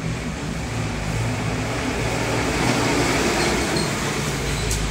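Cloth duster wiping a chalkboard: a steady scrubbing hiss, loudest about halfway through, as the written working is rubbed off.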